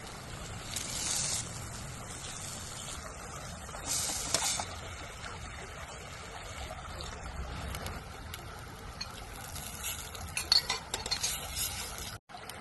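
Food cooking in a pan as a utensil stirs and clinks against it. There are short bursts of sizzling about a second in and again about four seconds in, and a run of quick clinks near the end.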